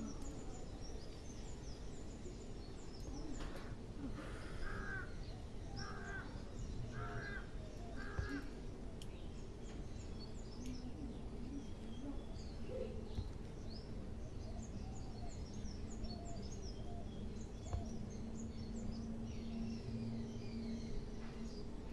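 A bird calling four times in a row, about a second apart, with smaller bird chirps scattered throughout over steady outdoor background noise.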